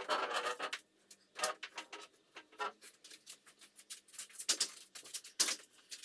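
A rope rasping as it is hauled hand over hand to hold up a suspended fiberglass boat hull, stopping within the first second, followed by scattered light taps and rustles.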